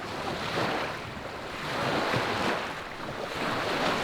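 Wind and choppy lake water as a storm comes up, a rushing noise that swells and eases in several surges.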